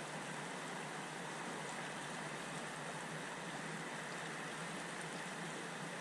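Creek water running steadily, a continuous even rush.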